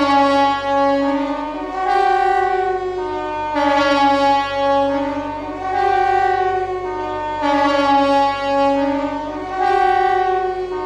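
KTG-10 compressed-air siren sounding the Swiss general alarm: a loud, many-toned wail whose pitch steps between a few notes in a cycle that repeats about every four seconds.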